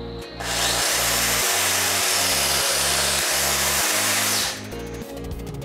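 Electric press tool's motor running for about four seconds as its jaw crimps a multi-jaw press fitting onto multilayer pipe, starting about half a second in and cutting off suddenly. Background music plays underneath.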